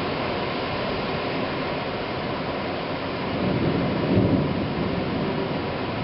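Heavy rain falling steadily in a thunderstorm, with a low roll of thunder swelling about three and a half seconds in and fading soon after.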